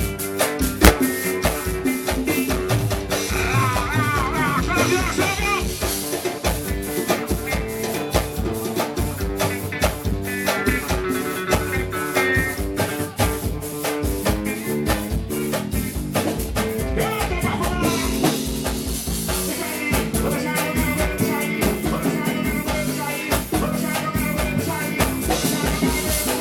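A live band playing an upbeat number at its sound check: a steady, driving beat of drums and percussion under bass and melodic instruments, with a brief wavering melody line about four seconds in.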